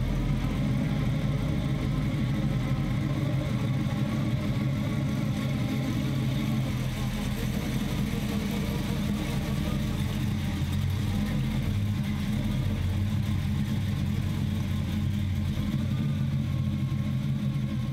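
1950 GMC pickup's 350 V8, bored .060 over with dual four-barrel carburetors, running at a steady low idle while the truck rolls slowly.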